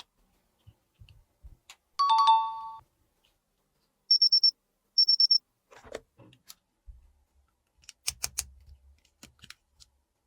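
A two-note falling electronic chime, then two short runs of rapid high-pitched beeps from a toy digital thermometer taking a temperature. Light plastic clicks follow in the second half.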